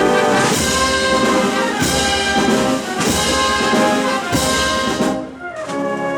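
Brass band (banda de música) playing a processional march: sustained brass chords over drum and cymbal strokes about every second and a quarter, with a brief break near the end.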